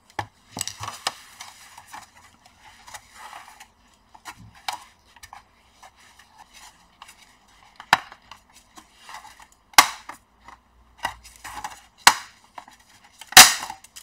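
Snap-in plastic clips of an Acer Aspire A315 laptop's bottom cover cracking loose one after another as a plastic opening tool is worked around the edge, with scraping and light clicking between the snaps. Sharp snaps come about eight, ten and twelve seconds in, and the loudest comes just before the end as the cover comes free. The clips are stiff, as they are on a brand-new laptop that is a little hard to open.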